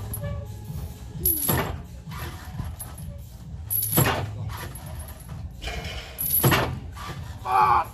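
Steel car-deadlift frame and its chains clanking three times, about every two and a half seconds, as the frame is lifted and set back down for repetitions. A steady low rumble runs underneath, and a short pitched sound, likely a grunt or breath, comes near the end.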